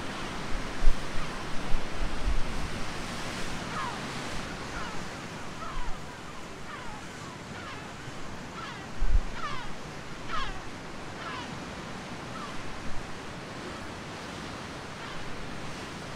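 Sea surf, a steady rush of waves, with wind buffeting the microphone in gusts over the first few seconds and again about nine seconds in. A series of short, high, falling chirps sounds between about four and eleven seconds.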